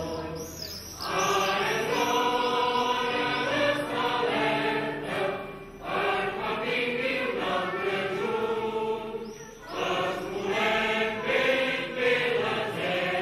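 Mixed choir of women's and men's voices singing, in sustained phrases with short breaks between them about a second in, near six seconds and near ten seconds.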